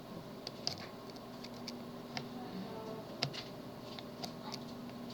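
Small irregular metallic clicks of a pick and tension tool working the pins of a tubular lock, with a faint steady hum beneath.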